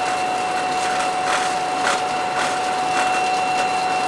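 Steady cab noise of a CN SD40-2 diesel-electric locomotive working under power, its EMD 16-cylinder two-stroke engine running over a constant high tone, with a few faint knocks.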